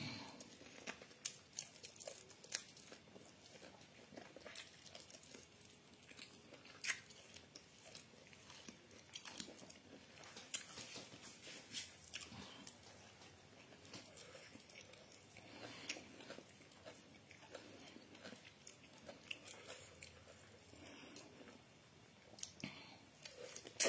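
A person biting and chewing barbecue eaten by hand: faint mouth sounds with many short, scattered clicks and crunches.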